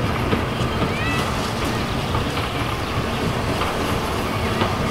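LSWR Urie S15 4-6-0 steam locomotive No. 506 running toward the listener with a train, a steady dense rumble of the engine working and its wheels on the track.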